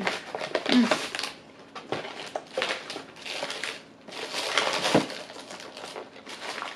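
Plastic snack wrappers crinkling and rustling in irregular bursts as packets are rummaged through in a cardboard box.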